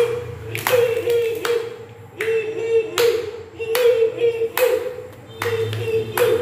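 Hands clapping in a steady rhythm, a little more than one clap a second, with voices singing or chanting along on a held note between the claps.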